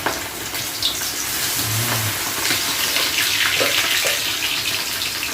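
Chicken pieces frying in hot oil: a steady sizzling hiss with many small crackles, a little louder from about halfway.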